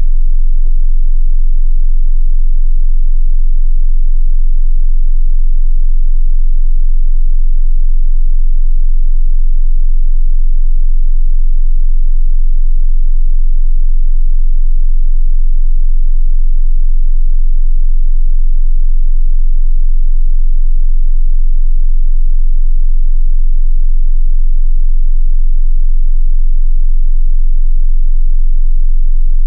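Continuous 22 Hz sine-wave bass test tone: a steady, loud, very deep hum that does not change in pitch or level.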